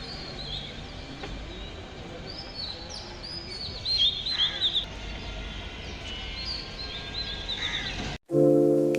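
Small birds chirping in quick, repeated calls over a steady low outdoor background hum. About eight seconds in, it cuts off abruptly and piano music begins.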